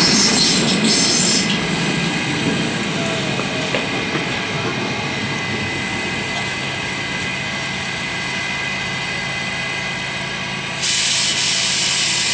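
New York City subway train running on the track, with a flickering high-pitched rushing for the first second and a half that settles into a steady noise. A loud hiss starts suddenly near the end.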